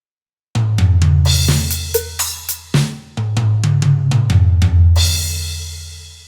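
Electronic drum sounds from a Roland SPD-30 Octapad: a fill of quick snare and drum strikes over deep, sustained low drum tones that step in pitch, ending with a cymbal crash about five seconds in that rings and fades away.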